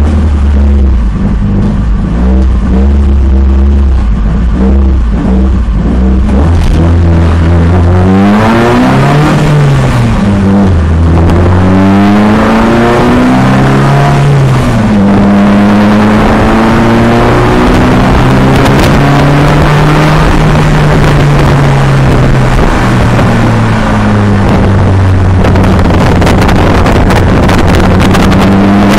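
Citroën Saxo competition car's engine heard from inside the stripped cabin, loud. It runs steadily at low revs, then from about eight seconds in rises and falls in pitch again and again as the car is driven hard and the gears are changed.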